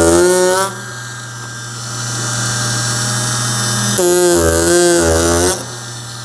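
Ryobi 4-volt cordless power carver with a V chisel cutting pine: a steady low motor hum, breaking into a louder, wavering buzz twice as the chisel is pressed into the wood, once at the start and again from about four seconds in for a second and a half.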